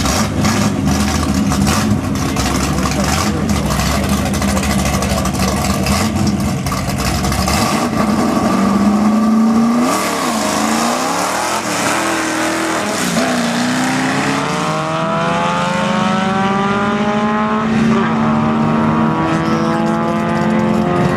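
Drag car engines idling roughly and blipping at the start line, then launching. From about two-thirds of the way through, the engine note climbs steadily as a car accelerates away down the strip.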